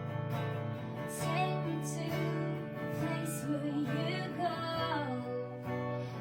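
Music: a woman singing a melodic line over acoustic guitar strumming.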